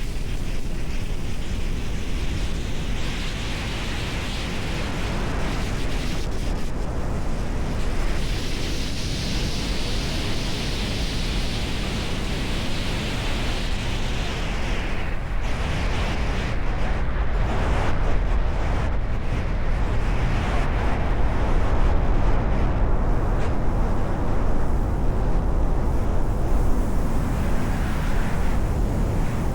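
Strong wind buffeting the microphone: a loud, steady rush of noise heavy in the low rumble, with a brighter hiss swelling for a few seconds in the first half.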